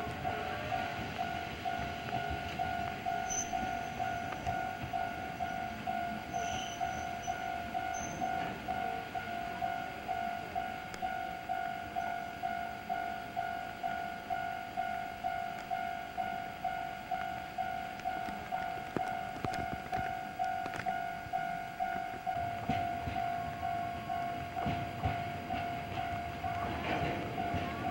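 Railway level-crossing alarm ringing steadily at an even pace of about two strokes a second, while a freight train of tank wagons rolls past. The rumble and knocks of the wagons grow louder near the end.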